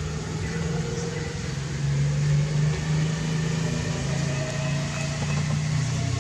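An engine running steadily at idle, a low hum that grows a little louder about two seconds in.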